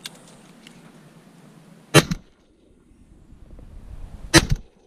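Two shotgun shots about two and a half seconds apart, fired right at the microphone by the shooter wearing the camera.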